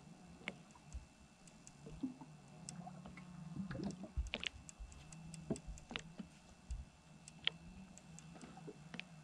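Scattered, irregular light clicks and knocks, a few louder ones about halfway through, over a faint steady low hum.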